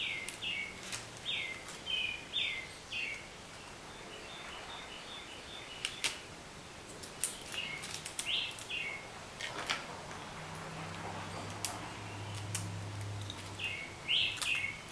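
A bird chirping in quick runs of short notes that each drop in pitch, three bursts of them, with scattered sharp clicks and taps from small plastic parts being handled on a table.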